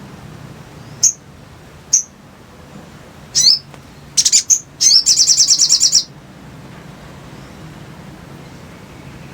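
Sogok ontong (little spiderhunter) calling: a few single sharp, high-pitched notes, then a fast chattering run of repeated notes that stops about six seconds in. A faint low hum runs underneath.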